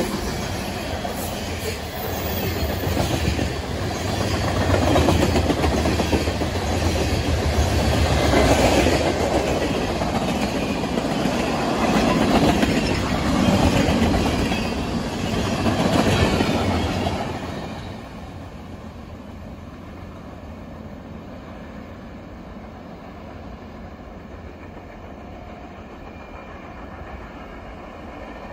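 Freight train cars, mostly covered hoppers, rolling past close by: steel wheels clatter on the rails, rising and falling as each car goes by. About two-thirds of the way in the last car passes and the sound drops to a much quieter steady background.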